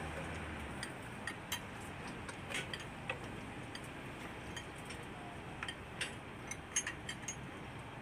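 Steady job-site noise during a concrete pour on a rebar deck, with irregular light clicks and clinks scattered through it.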